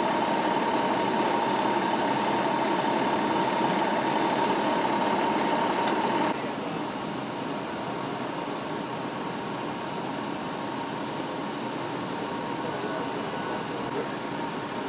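Idling emergency-vehicle engines: a steady engine rumble with a constant hum. The sound drops suddenly to a quieter steady rumble about six seconds in.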